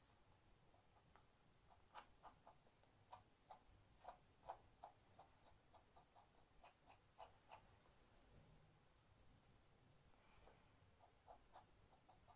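Faint scratching ticks of a dip pen's nib dragging across paper while inking lines, in irregular clusters with a short pause partway through.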